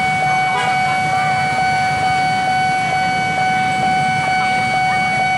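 Railway level-crossing warning alarm sounding a steady electronic tone, over the low rumble of motorcycle engines idling at the lowered barrier.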